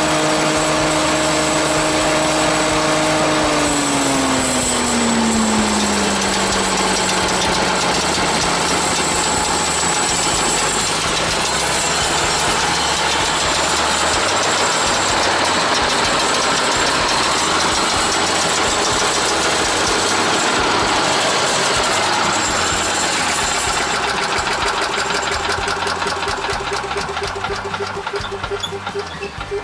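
Harbor Freight 212 cc single-cylinder gas engine running on a Yardman chipper shredder. About three seconds in, its pitch drops smoothly as it slows to a lower steady speed. Near the end the sound weakens and pulses.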